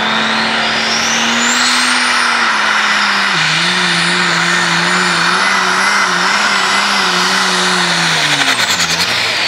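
Diesel pulling tractor running flat out under load on a pull, with a high turbo whine that climbs over the first two seconds and holds. The engine note drops about a third of the way in as the sled bears down, wavers, then falls away near the end with the whine as the throttle comes off.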